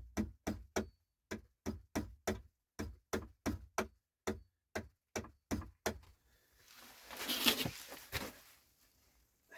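A hammer striking the back of an axe in quick, even blows, about three or four a second for some six seconds. A rustling, scraping noise follows for about two seconds.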